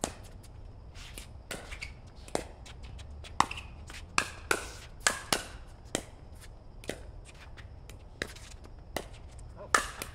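Pickleball rally: paddles striking the plastic ball in a string of sharp pops, about a dozen at uneven spacing, coming fastest in a quick exchange around the middle.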